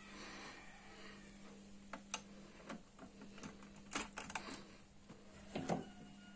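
Hard plastic clicks and knocks of a smart plug being handled and pushed into a wall socket: a scatter of sharp clicks through the middle, with the loudest knock a little before the end, over a faint steady hum.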